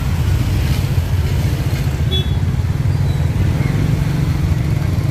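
A motor engine running steadily at an even pitch, a loud low drone, amid the bustle of a busy street market. A couple of faint short high tones sound about two seconds in.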